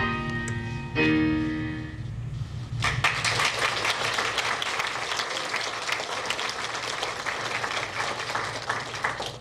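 Piano music ends on a held chord about a second in, followed by audience applause from about three seconds, clapping steadily until just before the end.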